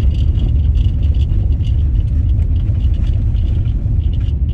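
Steady low road rumble of a moving car heard from inside the cabin, with faint irregular ticks over it.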